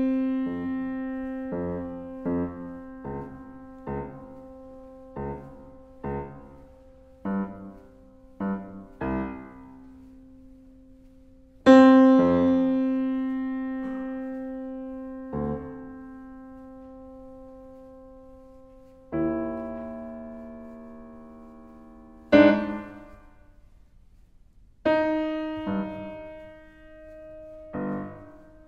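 Yamaha CFX concert grand piano playing slowly, with single notes and held chords left to ring and die away and a few louder strikes among them, picked up by a DPA 4006 omnidirectional microphone.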